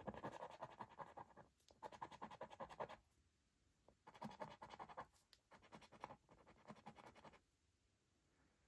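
Coin scratching the latex coating off a Cashword scratchcard's letter squares: faint, rapid scraping strokes in about five short bursts with brief pauses between them.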